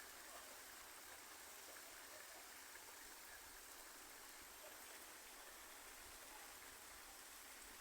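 Steady rain falling, heard faintly as an even hiss.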